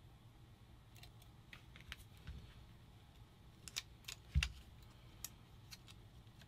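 Faint, scattered clicks and light taps of small parts being handled on a paintball marker's frame, with a dull thump about four and a half seconds in.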